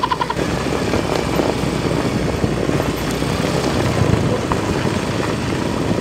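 Motorcycle running steadily while riding along a dirt road, with heavy wind noise on the microphone.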